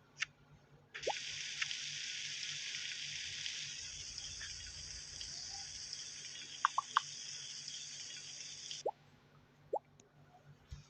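Water running steadily from a tap or shower head for about eight seconds, switching on and off abruptly, followed by a few drips.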